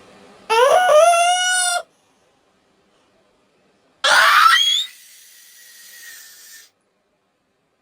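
Cartoon character's exaggerated sneeze: a drawn-out 'aaah' wind-up that climbs in pitch and holds high, then a short noisy 'choo' burst about two seconds later.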